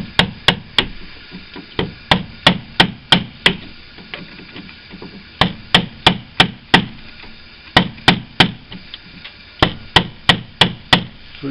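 Hammer tapping a chisel to chip very hard old putty out of a timber window frame: sharp taps in five runs of three to six, about three a second, with short pauses between.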